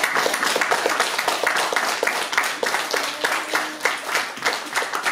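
An audience applauding: many hands clapping at once, irregular and dense.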